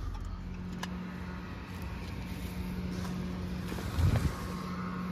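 Pickup truck engine idling with a steady low hum, and one dull thump about four seconds in.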